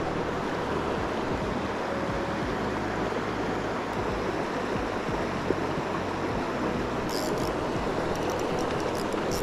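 Steady rush of a shallow river flowing over stones. Near the end come a few faint clicks in quick succession as the spinning reel is handled.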